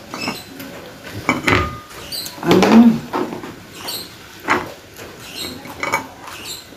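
Close-up wet chewing, lip-smacking and sucking as a person eats a cooked fish head with her fingers: a run of short, sharp smacks and clicks. The loudest mouth sound comes about two and a half seconds in.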